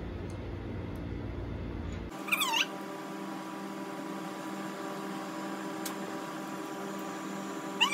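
A cat meowing: one loud meow falling in pitch about two seconds in, then a few more wavering meows near the end, over a steady background hum.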